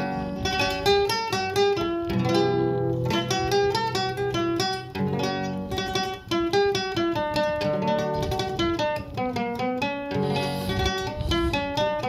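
Classical guitar played solo: a quick melody of single plucked notes, an instrumental passage with no singing.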